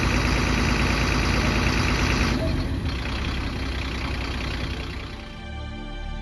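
Fire engine's diesel engine running steadily with a loud hiss over it that drops away about two and a half seconds in. Soft music takes over near the end.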